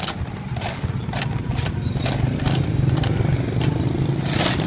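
Street noise: a nearby engine runs with a low rumble that grows louder about halfway through, under a series of irregular sharp clicks and clacks.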